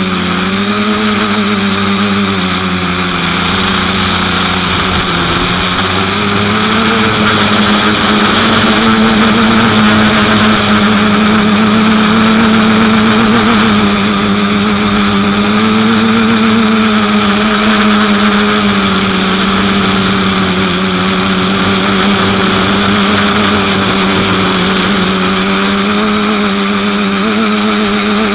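The motor of a small vehicle running steadily as it drives over grass, with a continuous hum whose pitch drifts gently up and down with speed, and a thin steady high whine.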